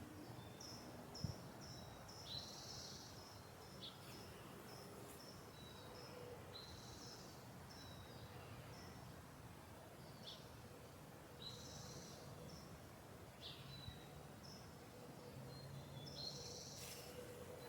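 Small songbirds chirping, short high calls repeated every half second or so, with a few louder chirping bursts, over a steady low hum of suburban background noise. A soft low knock sounds about a second in.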